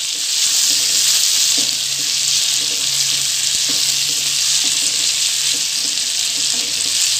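Chopped onion, tomato and capsicum sizzling in hot oil in a kadhai as they are stirred with a silicone spatula: a steady hiss with light scraping ticks from the spatula.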